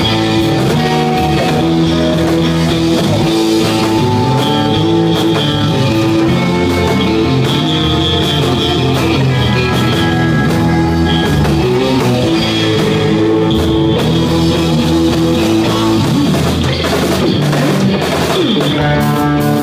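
Live instrumental surf-rock band playing: electric guitars over a rock drum kit, with a sliding sweep in pitch near the end.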